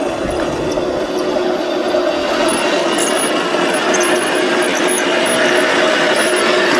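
1/16-scale radio-controlled M1 Abrams model tank driving over gravel: a steady mechanical whine from its drive with the tracks grinding, and short high squeaks through the middle.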